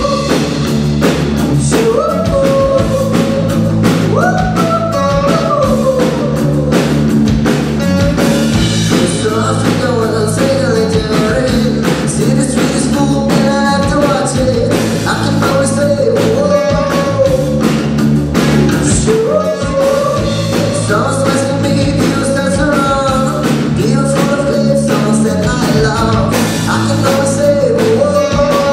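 Alternative rock band playing: distorted electric guitar, bass guitars and a drum kit driving a steady beat, with a male lead voice singing over them.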